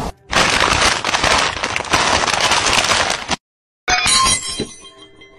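Gunfire sound effect, a loud dense crackle of shots, until about three seconds in. After a brief silence, glass smashes, and the tinkling of shards fades out.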